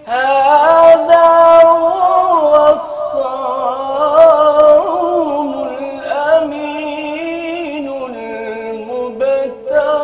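A man's solo voice chanting an Islamic ibtihal (devotional supplication). It opens a new phrase right at the start and sings long melismatic lines, holding each note and bending it in ornaments.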